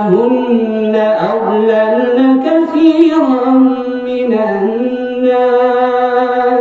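An imam's solo melodic Quran recitation in Arabic: one man's voice holding long, drawn-out notes that slide up and down in pitch, without a break.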